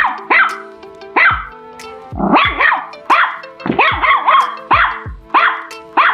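Chihuahua barking over and over, sharp high-pitched barks coming about twice a second.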